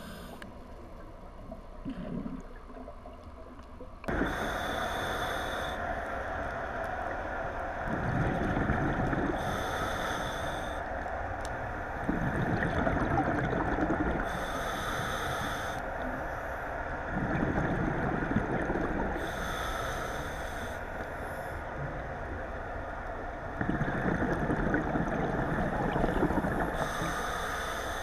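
Scuba diver breathing through a regulator underwater: a short hissing inhale about every five seconds, each followed by a longer gurgling burst of exhaled bubbles.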